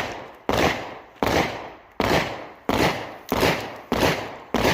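A rapid, regular series of loud sharp bangs, about three every two seconds, each with a ringing tail.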